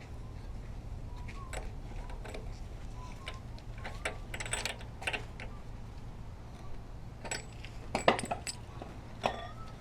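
Scattered metallic clicks and clinks of hand tools working on a small lawnmower engine as the spark plug is refitted, with a sharper knock about eight seconds in.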